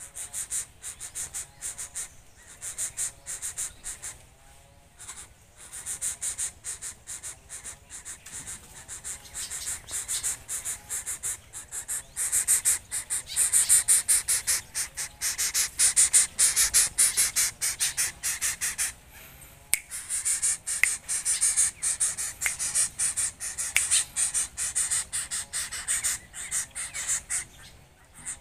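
An insect's fast, high-pitched clicking buzz, rising and falling in waves with a few short breaks.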